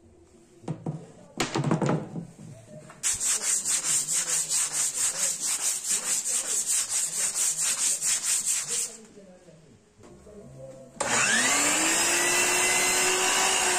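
A wooden dowel is sanded by hand with sandpaper in fast back-and-forth strokes, about five a second, for some six seconds. Then a sliding miter saw's motor starts up with a rising whine and runs steadily.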